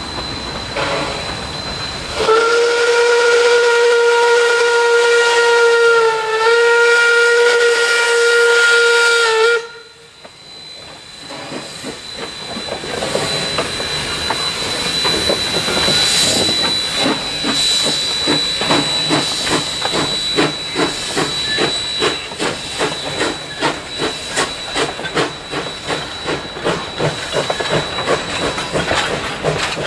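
Steam locomotive whistle on C17 967: one long blast of about seven seconds with a brief dip in pitch partway through, cutting off sharply. After a short lull, the train's running noise comes in as a rhythmic beat that grows louder and quicker.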